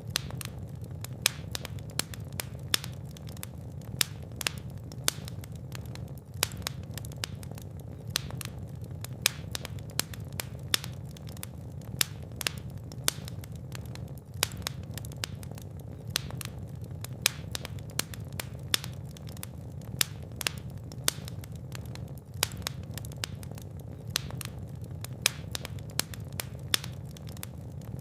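Fire in a fireplace crackling, with many sharp pops, several a second, over a steady low rumble of flames.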